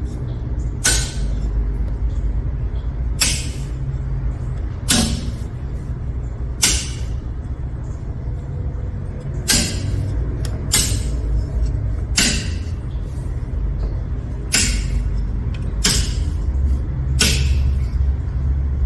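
Industrial circuit breakers in an electrical panel being switched one at a time, each a sharp, dry mechanical click, about eleven of them at uneven intervals of one to three seconds. A steady low hum runs underneath.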